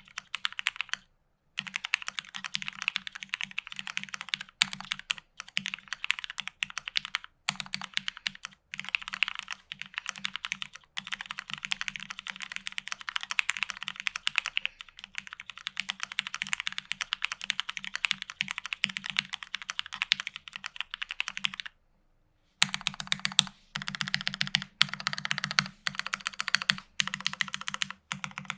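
Typing on a custom Alice-layout mechanical keyboard with lubed, retooled Cherry MX Black linear switches on an FR4 plate under GMK doubleshot ABS keycaps: fast, dense runs of keystrokes. Near the end the typing stops for about a second, then resumes in shorter bursts.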